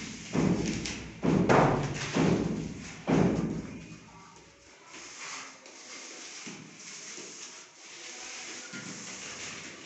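Four heavy thuds about a second apart, then a quieter stretch of faint low noise.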